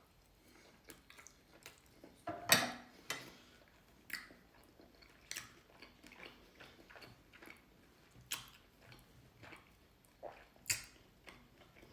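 A person chewing food close to the microphone: irregular wet mouth smacks and clicks, a few of them louder.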